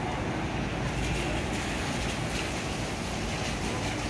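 Steady low rumble of a Hino Selega highway coach's diesel engine idling while the coach stands at the stop.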